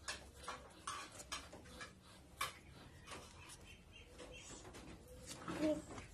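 Wax crayon scratching across paper in short, irregular strokes.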